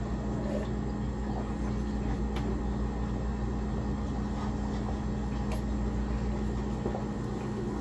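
Steady hum of a running kitchen appliance or fan: one constant mid-pitched tone over a low drone.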